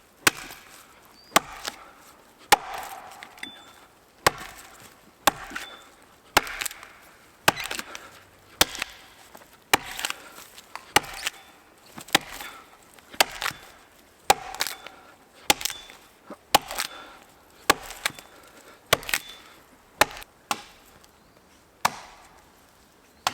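Felling axe chopping into a standing spruce trunk: sharp, steady blows of steel biting into wood, about one a second, with a brief pause near the end.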